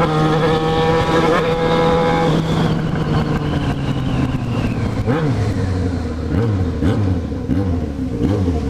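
Yamaha XJ6's 600 cc inline-four engine running at a steady pitch, then revved in a series of quick throttle blips, each rising and falling, in the second half.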